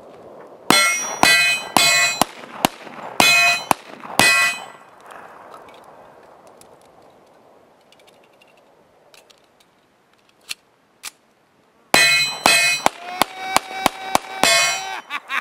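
Gunshots each answered by the clang of a steel target ringing on a hit. About half a dozen come in the first four seconds, then after a pause of several seconds a second, quicker string starts near the end. The pattern fits a rifle-to-pistol transition drill.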